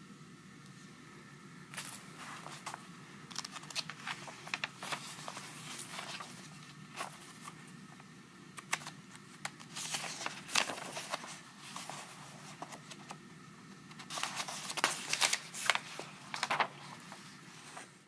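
A paper instruction sheet and packaging being handled and unfolded: crinkling and rustling on and off, busiest about ten seconds in and again near the end, over a steady low hum.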